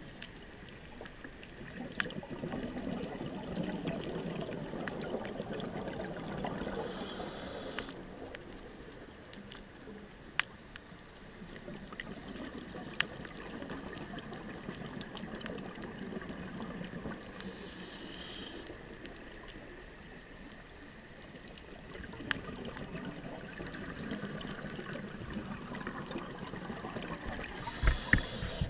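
Underwater sound of scuba regulator breathing: a low rushing that swells and fades, broken about every ten seconds by a short burst of exhaled bubbles, with a few scattered sharp clicks.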